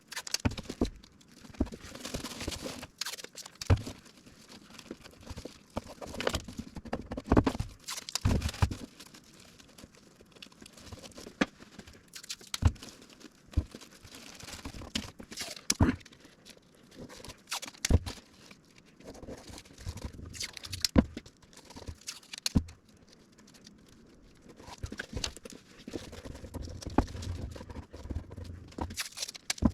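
Plastic masking sheet and masking tape being handled by hand: irregular crinkling, tape ripping and small knocks.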